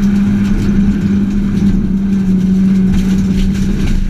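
Peugeot 206 1.6 16-valve four-cylinder rally engine held at steady high revs, heard from inside the cabin, with gravel clicking against the car.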